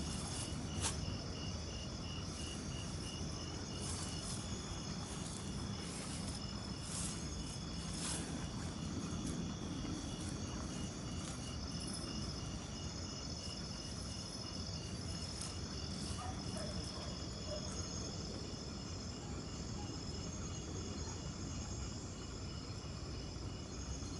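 Night chorus of crickets: one calling in an even, pulsing chirp, others holding steady high trills, over a low continuous rumble.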